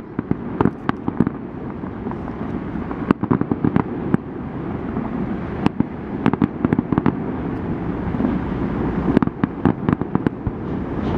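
Aerial fireworks bursting: clusters of sharp bangs and crackles in several bursts, over a steady low rumble.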